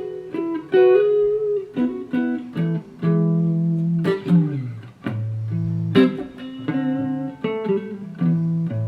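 Electric guitar, a Fender Telecaster, played through an Orange Crush 35RT solid-state practice amp with no pedals switched on: a phrase of picked notes that ring over held lower notes, with one note sliding down about four seconds in.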